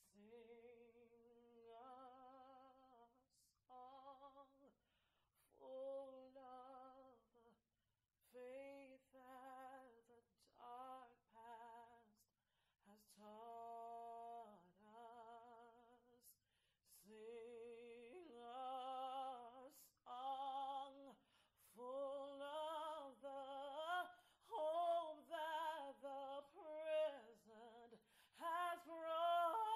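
A woman singing solo without accompaniment, in sustained phrases with vibrato and short breaths between them, growing louder and more intense toward the end.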